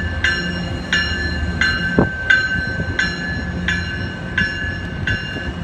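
MBTA commuter train's bell ringing steadily, about three strikes every two seconds, over the low rumble of the passing train. A single sharp clank about two seconds in.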